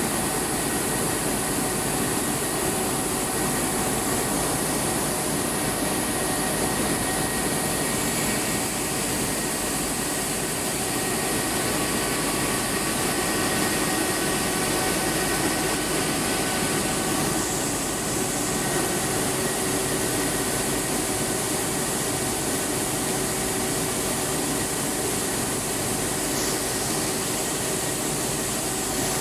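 Rice milling plant machinery running: a steady, unchanging mechanical noise with a few constant whining tones over it.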